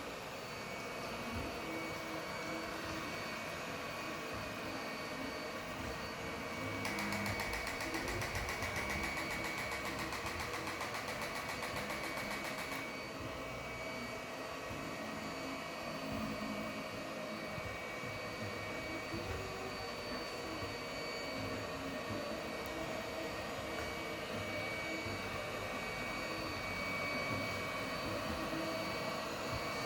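iLife robot floor cleaner running with a steady motor hum. A rapid ticking comes in about seven seconds in and stops about six seconds later. This is the faulty ticking the owner hears in place of normal cleaning.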